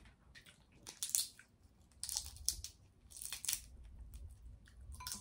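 Cooked king crab leg shell crackling and the meat tearing as it is pulled apart by hand, close to the microphone, in several short clusters of sharp crackles.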